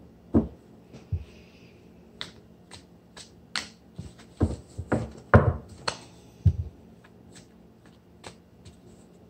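A series of irregular sharp taps and knocks from hands handling a tarot deck, thickest and loudest a little past halfway.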